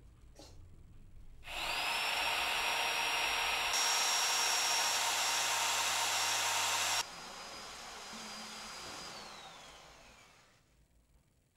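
Corded handheld electric blower switched on: its motor whines up to speed about a second and a half in and runs steadily with a loud rush of air. About seven seconds in it suddenly drops to a much quieter, more distant sound, then whines down and stops.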